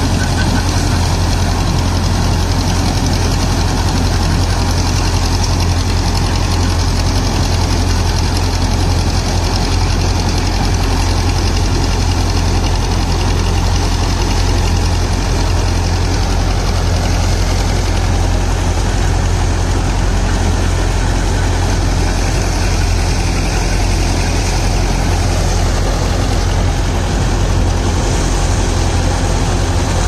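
Farmtrac 6055 tractor's four-cylinder diesel engine running steadily while driving a Panesar TMC 800 tractor-mounted combine harvester, its machinery adding a steady noise over the engine's low hum.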